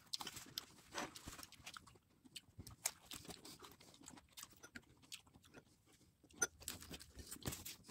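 A person chewing and biting into vegetable spring rolls (lumpiang gulay): quiet, irregular mouth clicks and crunches.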